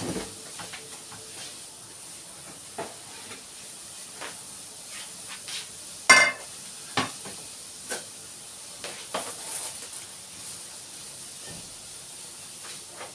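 Grated red cabbage sizzling in oil in a frying pan, stirred with a wooden spatula: a steady high hiss with scattered scrapes and knocks of the spatula against the pan. One louder sharp knock with a brief ring comes about six seconds in.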